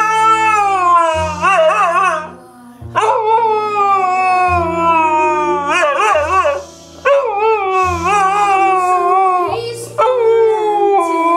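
Siberian husky howling along to music: about five long howls in a row, each sliding down in pitch, some with a wavering warble, separated by short breaths. Low sustained notes of the song play underneath.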